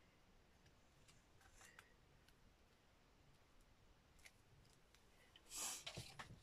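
Mostly quiet, with a few faint light taps as fingers press paper pieces onto a card. A short rustle of paper comes near the end.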